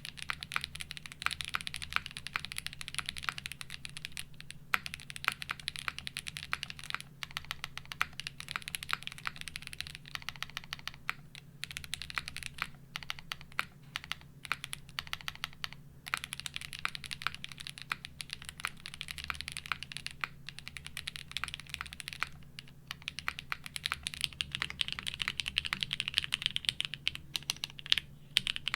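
Fast continuous typing on a custom mechanical keyboard, mostly the F1-8X 722: a dense stream of keystroke clacks broken by a few brief pauses.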